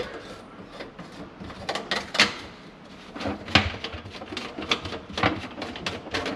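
Plastic ABS sink drain trap being taken apart by hand: irregular clicks, knocks and scrapes as slip-joint nuts are unscrewed and the pipe pieces pulled loose, with a few louder knocks along the way.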